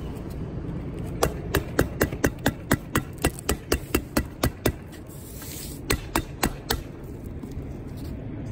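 Hammer tacker driving staples through synthetic roof underlayment into OSB roof decking. A quick run of sharp strikes, about four a second, then a short pause and four more.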